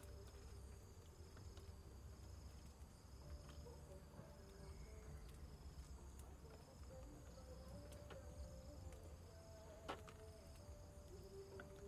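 Faint insects chirping in an even repeating pulse, about two chirps a second, over a low steady rumble; one sharp click near the end as an egg is set into the wok.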